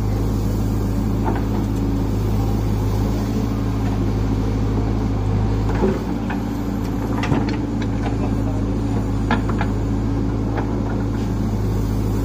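JCB backhoe loader's diesel engine running steadily under load while the front bucket works, with a few sharp knocks about halfway through.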